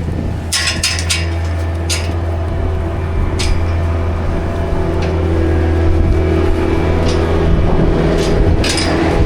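Skid loader engine running steadily, with sharp metallic clanks and knocks now and then.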